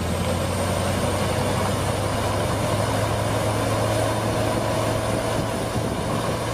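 Heavy machinery engine running steadily with a low, even drone.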